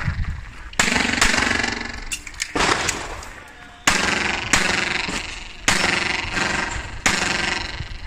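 Taurus TS9 9mm pistol firing single shots, about five spaced a second or more apart with a longer gap after the first. Each shot rings on and decays for about a second off the concrete walls of the range bay.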